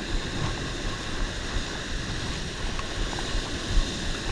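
Ocean surf washing up the beach and foaming around the shore: a steady hiss over an irregular low rumble.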